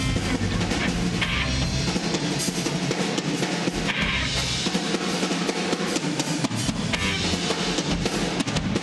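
Live rock band playing: drum kit with kick and snare driving a steady beat under electric guitars. The deep bass drops away about two seconds in and comes back about two seconds before the end.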